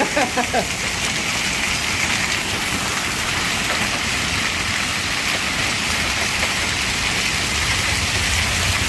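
Hail pouring down in a storm: a steady, dense hiss of hailstones striking, without a break.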